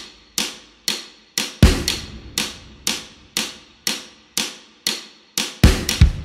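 Background music: an energetic stomp-and-clap production track, with a sharp clap or snare hit about twice a second. There is a deep drum hit about a second and a half in, and a run of heavier kick drum beats starts near the end.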